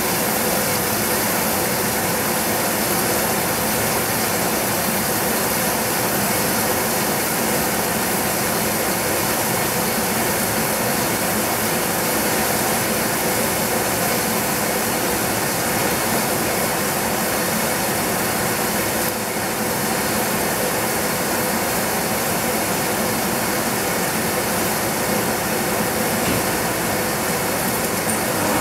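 Steady rushing noise with a faint hum from a kitchen stove in use, where chicken cooks in a covered stainless steel pan over a gas burner.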